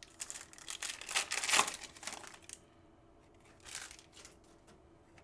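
A trading card pack's wrapper being torn open and crinkled: a dense crackle for about two and a half seconds, then a brief crinkle a second later.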